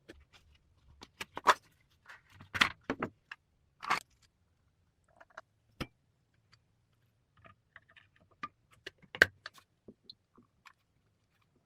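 Tools and metal parts being handled: irregular clinks, taps and short scrapes, loudest about one and a half seconds and nine seconds in.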